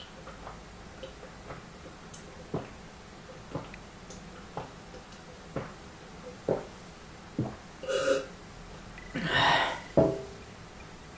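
A man gulping down beer from a glass, a swallow about once a second, then a breath out and a louder burp around nine seconds in. The glass is set down on the table with a knock about a second later.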